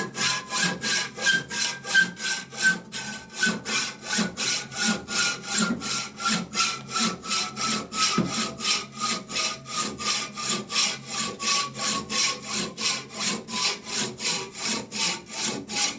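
Hand hacksaw cutting through a metal part in quick, even strokes, about two and a half a second, near the end of the cut. The thin section left makes a faint ringing tone that slowly falls in pitch.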